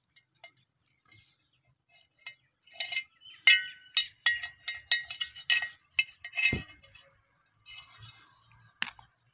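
Small clinks, clicks and rattles of a PTZ camera's cable connectors knocking against its plastic wall-mount bracket as the cable is threaded through the bracket, starting about three seconds in, with one dull thud partway through.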